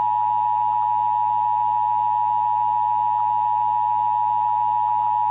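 Emergency Alert System attention signal: a single loud, unbroken electronic tone just under 1 kHz, held steady without any change.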